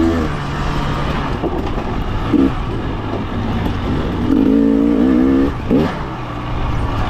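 Fuel-injected two-stroke engine of a Husqvarna TE300 dirt bike running on the trail, its pitch wavering up and down with the throttle. It surges twice, the second time about two-thirds of the way in, and gives a quick rising rev near the end, over a steady rushing noise.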